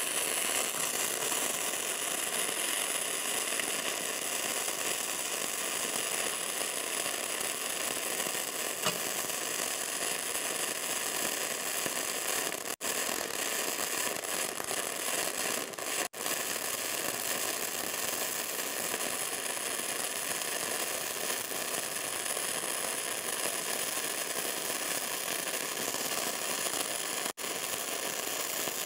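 Gasless flux-core wire welder arc running steadily on thin sheet steel at a slightly reduced output: an even crackling sizzle. It breaks off for an instant three times.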